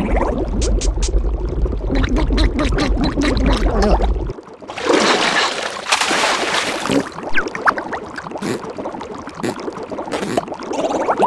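Cartoon underwater sound effects: bubbling, gurgling water over a low rumble that cuts off about four seconds in, followed by a watery hiss with short squeaky blips.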